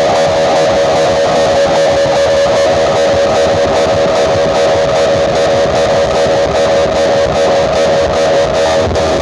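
Loud music with guitar played through a large Thai outdoor-cinema PA sound system, dense and unbroken, with a strong steady midrange band.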